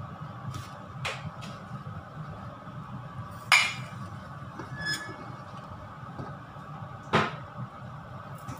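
Stainless steel pan lid clanking with a short metallic ring as it is lifted off a small frying pan and set down, with lighter clinks of metal and utensil against the pan before and after, over steady low background noise.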